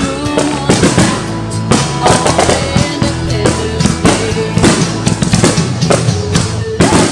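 Music with drums and held notes, with aerial firework shells bursting over it in repeated sharp bangs.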